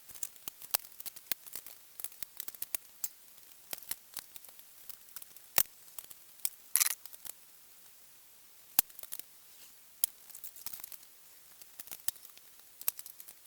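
Irregular sharp clicks and light knocks of clamps being fitted and steel body panels handled and shifted as a Mini's scuttle panel is lined up.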